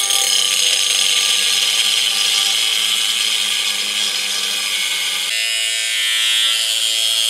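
Angle grinder with a thin cut-off wheel cutting through steel flat stock: a steady high whine with a grinding hiss as the wheel bites into the metal. About five seconds in the sound changes, the grinding noise thinning to a plainer, clearer whine.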